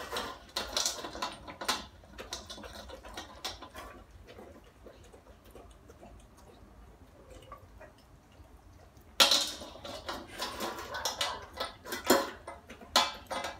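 A dog eating dry kibble from a stainless steel bowl: crunching and chewing, with kibble and muzzle clattering against the metal bowl. Busy in the first two seconds, quieter in the middle, then loud again from about nine seconds in.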